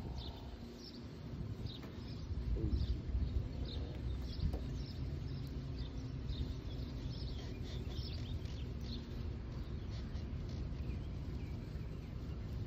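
Outdoor ambience: small birds chirping on and off over a steady low background rumble.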